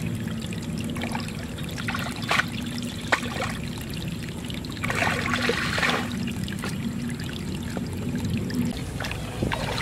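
Shallow water spilling over a low mud dam into a rice-field ditch, trickling and splashing steadily, with a louder stretch of splashing about five seconds in.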